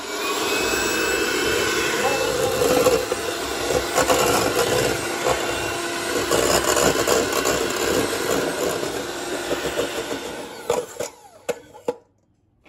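Electric hand mixer running steadily, its beaters whipping egg whites with cream of tartar in a stainless steel bowl toward stiff peaks. It dies away and stops about a second before the end.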